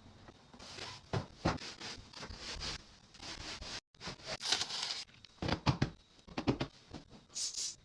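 Rustling and crinkling of packaging with irregular light knocks and clicks as groceries are handled and set down. The sound drops out completely for a moment just before the middle, then comes back as a denser run of knocks.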